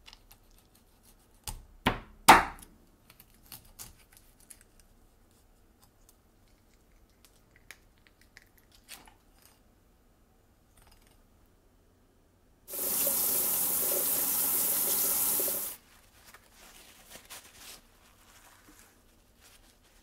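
Two sharp knocks of a kitchen knife chopping through a mackerel's head onto a wooden cutting board about two seconds in. Later a tap runs steadily into a sink for about three seconds, followed by a soft rustle of paper towels.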